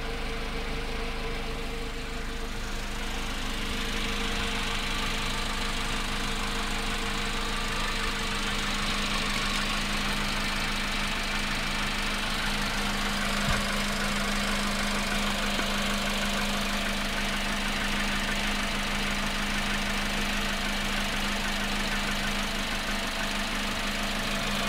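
Volkswagen Polo Sedan engine running steadily from a cold start, with the knocking noise that is getting worse on a cold engine. A single sharp click about halfway through.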